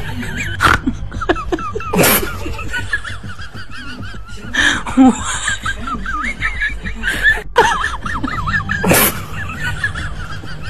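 Laughter over background music, with several sudden loud bursts spread through it.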